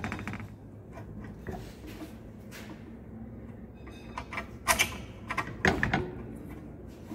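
Metal parts and hand tools clinking and clattering as a steel handle is fitted and bolted onto the sheet-metal frame of a machine, with a few sharp clanks about two-thirds of the way in, over a low steady hum.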